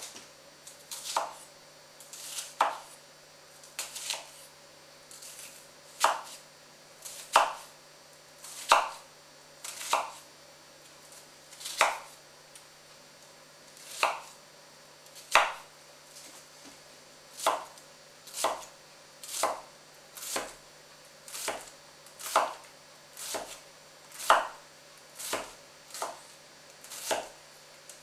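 Global santoku knife dicing a half onion on a wooden cutting board: a string of crisp cuts, each ending in a knock of the blade on the board. The strokes come a little slower at first, then settle to about one a second.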